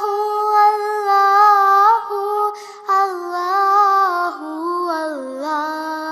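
A single high voice singing a naat, drawing out long held notes that turn and bend in pitch, with a brief breath about two and a half seconds in.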